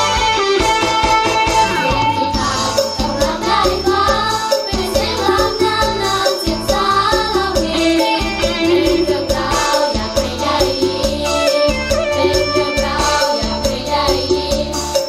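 A song sung by a girl's lead voice with girls' backing voices over a band with drums. The voices come in about two seconds in, over a steady beat.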